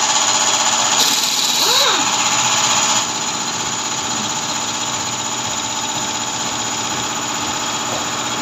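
Pneumatic impact wrench running for about three seconds, loosening the lug nuts of a punctured van wheel, then stopping. A steady engine drone runs underneath throughout.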